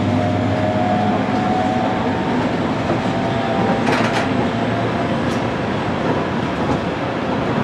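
Electric train running along the track, heard from the front cab: a steady rumble of wheels on rail, with a faint whine in the first couple of seconds and one short sharp click about four seconds in.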